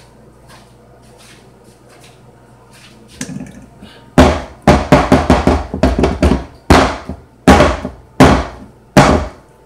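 A batter-filled metal tube cake pan is banged down on a wooden counter again and again, a series of heavy knocks starting about four seconds in, settling the pound cake batter before baking. Before the knocks there are a few faint clicks and handling sounds.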